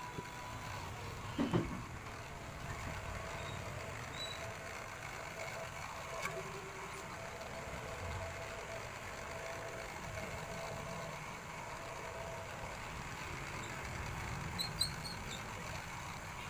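Steady low background rumble, with a faint steady hum, a small click about six seconds in and a few short high chirps near the end.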